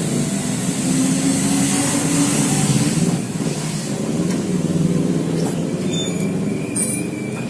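Yamaha Mio J scooter running with its rear wheel turning, giving a steady loud rumbling, grinding noise from the rear wheel. The noise is typical of a worn rear wheel axle bearing.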